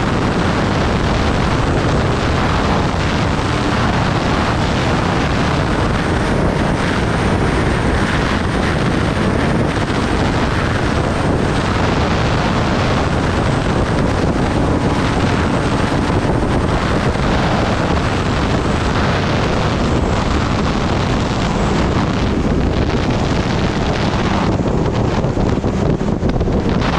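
Loud, steady rush of wind over the microphone, with a motorcycle's engine running underneath: a Kawasaki Ninja ZX-10R inline-four being ridden.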